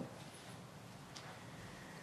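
Faint room tone of a lecture hall, with one small click about a second in.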